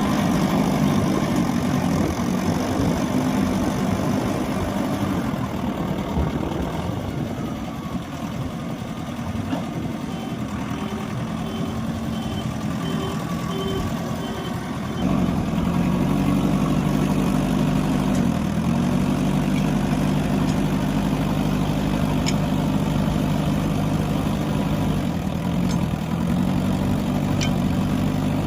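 Heavy diesel engines of earth-moving machinery running, their pitch rising and falling as they are worked. A reversing alarm beeps steadily for a few seconds near the middle, and about halfway through the engine sound jumps abruptly louder and changes in tone.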